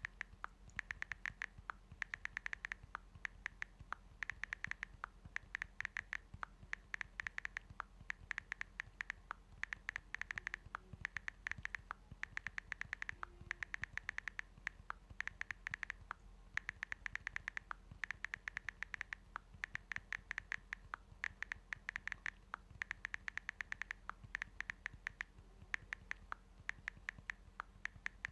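Typing on a smartphone's touchscreen keyboard: quick runs of light key clicks and taps, bunched in bursts with short pauses between them.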